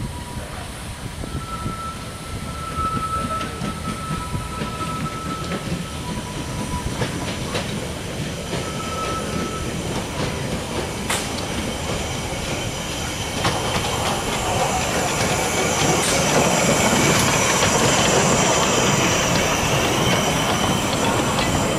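Narrow-gauge steam train drawing near and passing close: the engine's running rumble, and wheels clicking over the rail joints. About halfway through it grows louder and a high wheel squeal sets in as the open carriages roll by.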